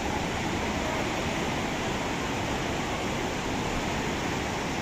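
A river in flood after a cloudburst, rushing past as a steady, unbroken noise of churning water.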